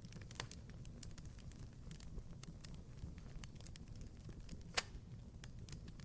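Wood fire crackling in a fireplace: scattered small pops and snaps over a low rumble of flame, with one louder pop about five seconds in.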